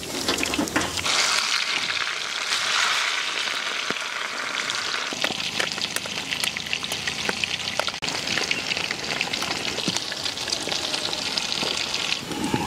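Fish coated in crushed noodles deep-frying in hot oil in a kadai: a steady sizzle, dense with small crackles, that fades just before the end.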